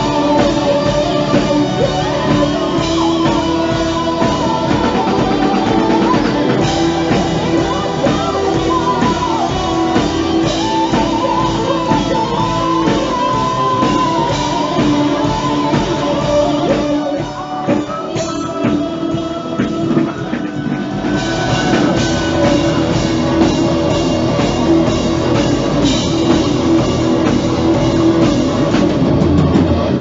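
Hard rock band playing live and loud: distorted electric guitar and drum kit under a male lead singer.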